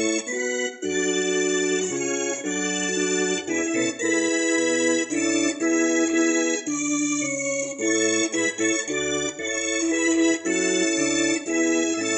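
Yamaha electronic keyboard played with an organ voice: sustained held chords over a bass line that changes about once a second, in a slow hymn.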